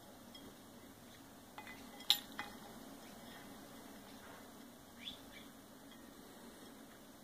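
Sun conure bathing at a glass bowl of water: a few sharp clinks of its beak against the glass about two seconds in, and one short chirp about five seconds in.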